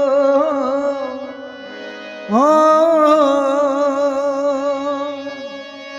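Male voice singing a Rajasthani devotional bhajan: a long held "O" with vibrato fades out, then about two seconds in a new "O" slides up and is held with vibrato for about three seconds, over a steady drone.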